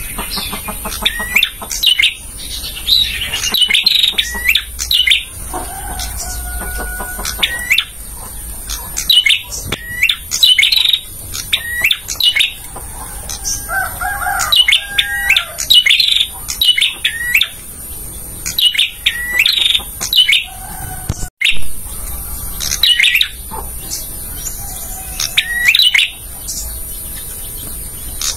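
Male prenjak (prinia) singing: quick, loud bursts of sharp repeated chirps, with a few lower whistled notes in between. The sound drops out briefly about two-thirds of the way through.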